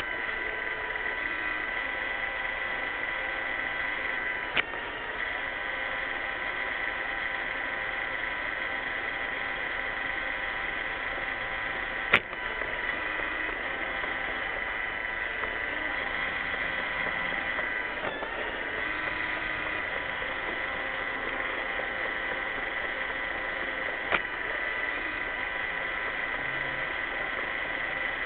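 iRobot Roomba 600 robot vacuum running: a steady motor and brush whine with several fixed tones, dipping in pitch briefly about two-thirds through. Three sharp knocks come about 4.5, 12 and 24 seconds in.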